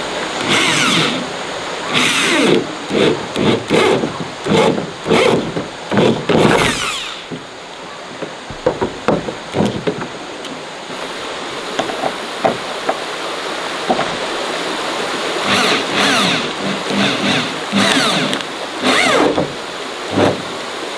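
Power drill running in short repeated bursts, its pitch rising with each spin-up, driving screws into corrugated iron roofing. There is a quieter stretch in the middle before the bursts start again.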